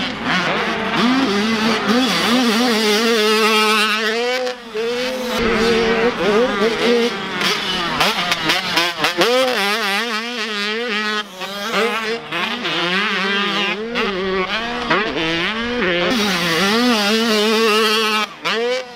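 Motocross bike engines racing on a dirt track, revs rising and falling again and again as the riders accelerate, shift and back off over jumps and turns.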